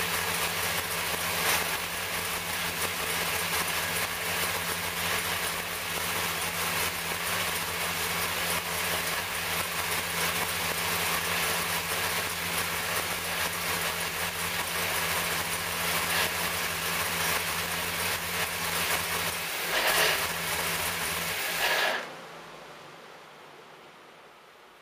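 A 434 cu in small-block Chevrolet V8 racing engine running steadily on an engine dyno. It is shut off about 22 seconds in, and the sound dies away quickly.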